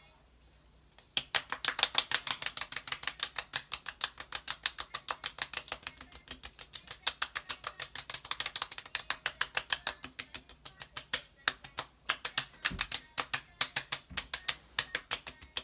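Palms rapidly patting the skin of the face, a quick run of sharp slaps at about five a second that starts about a second in and pauses briefly twice near the end. The patting presses a skincare product into the skin.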